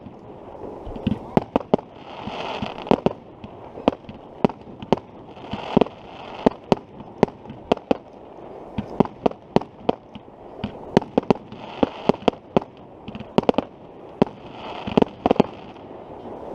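Aerial fireworks display: shells bursting in an irregular stream of sharp bangs, sometimes several in quick succession, over a continuous rumble and crackle.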